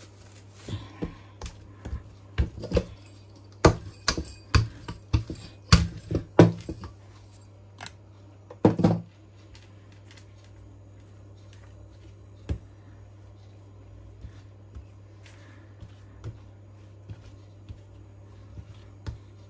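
Hands handling soft bread dough on a silicone pastry mat: a quick series of taps and knocks through the first half, then quiet while the dough is rolled into a rope, with a few faint ticks.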